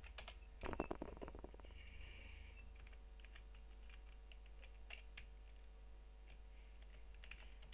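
Faint, scattered clicks of a computer keyboard and mouse, with a few keystrokes in quick runs, over a steady low hum.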